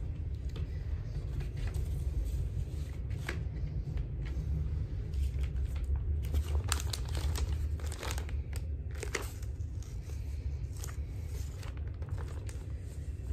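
Vinyl record album jacket being handled: rustling and crinkling with scattered sharp crackles, over a steady low rumble.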